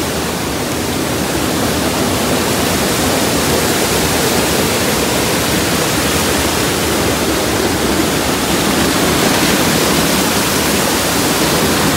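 Muddy floodwater rushing down a swollen hillside stream channel (gadera) in spate after heavy rain: a loud, steady rush of water.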